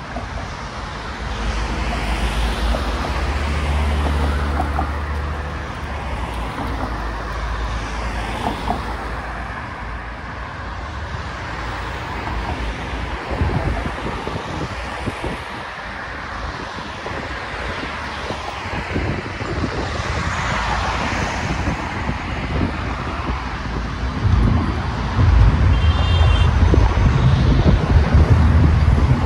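Road traffic going by: cars and vans passing on the adjacent roadway in a steady wash of noise, with wind buffeting the microphone at times, most heavily near the end.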